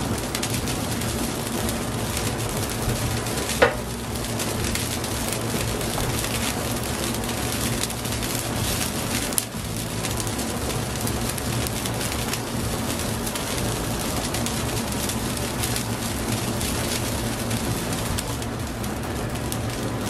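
Seafood broth simmering in a paella pan over a gas burner: a steady bubbling hiss over a low rumble. A sharp tap comes about three and a half seconds in, and another near the middle.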